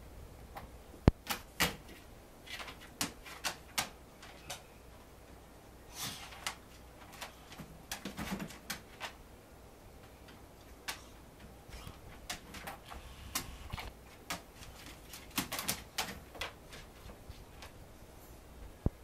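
Sleeping Pembroke Welsh corgi puppies stirring: irregular small clicks and taps with faint rustling, the sharpest click about a second in and another just before the end.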